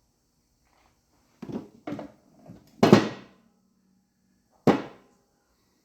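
A few separate clunks and knocks of tools and parts being handled on an engine block, the loudest about three seconds in with a short ring after it.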